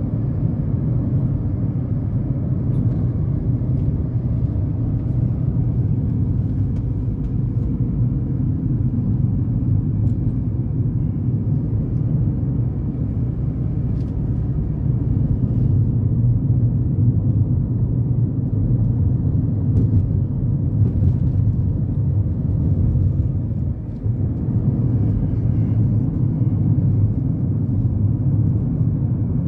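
Steady low rumble of tyre and engine noise inside the cabin of a Honda Element cruising on a highway, with a brief dip in level about four-fifths of the way through.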